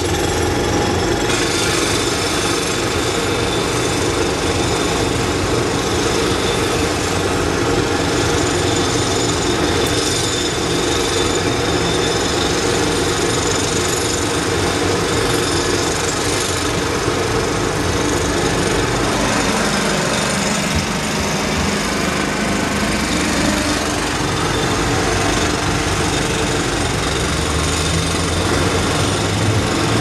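Several jackhammers pounding the concrete of an elevated parking structure under repair, a loud, dense rattle that never lets up.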